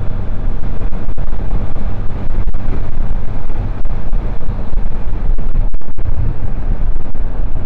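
Wind rushing loudly over the microphone of a motorcycle riding along the highway, with the bike's engine running as a steady low hum underneath.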